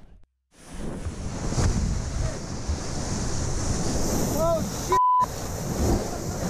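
Surf surging and splashing over rocks at the water's edge, with wind buffeting the microphone. About five seconds in, a brief voice is cut off by a short censor bleep.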